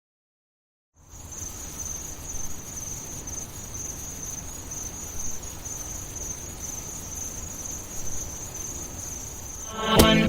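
Steady high-pitched chirring of insects, such as crickets, over a low background hiss, starting after a second of silence. Near the end, a dance-pop track with a percussive beat cuts in.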